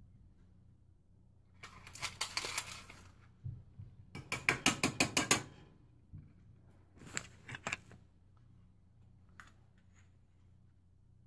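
Rapid rattling clicks in a few short bursts from handling a measuring spoon and a packet of dry yeast, the loudest an even fast run of about eight clicks a second a few seconds in.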